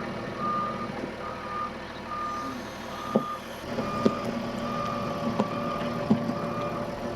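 Vehicle reversing alarm beeping steadily, about one beep a second. Four sharp knocks fall between about three and six seconds in.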